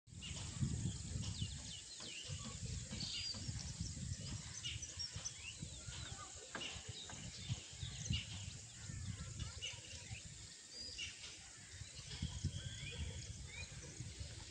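Many small birds chirping and calling, short quick notes overlapping throughout, over a low, gusty rumble of wind on the microphone.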